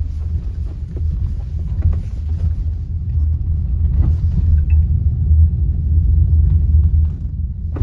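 Low, steady road rumble heard inside the cabin of a Mahindra XUV400 electric SUV as it rolls at about 20–30 km/h over a potholed, broken road, with a few faint light knocks. The suspension gives no clunks or rattles over the holes and there is no engine sound, the car being electric.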